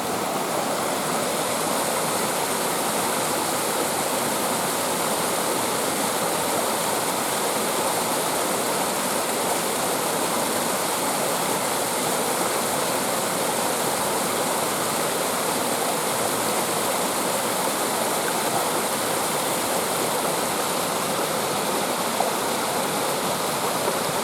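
Waterfall on a stream, water pouring and splashing in a steady, unbroken rush.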